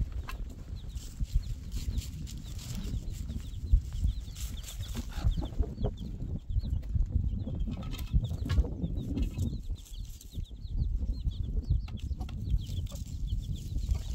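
Chickens clucking and chirping, with scattered knocks of hollow concrete blocks being set down on stony ground and a low rumble underneath.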